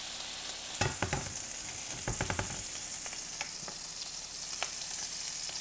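Beef smash-burger patty sizzling in smoking-hot oil in a stainless steel frying pan, the oil spitting and splattering. A few sharp knocks come about one and two seconds in.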